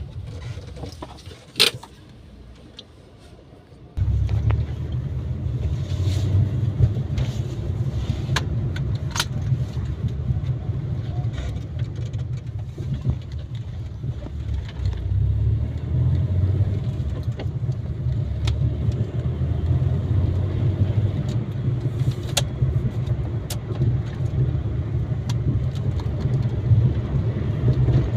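Maruti WagonR being driven: steady low engine and road rumble that starts suddenly about four seconds in, after a quieter opening with a single sharp click.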